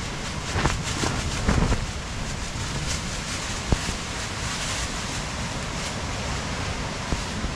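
Storm wind gusting against a dome tent, the tent fabric rustling and flapping in a steady rush of wind. Stronger gusts swell about a second in, and there is one sharp tap about halfway.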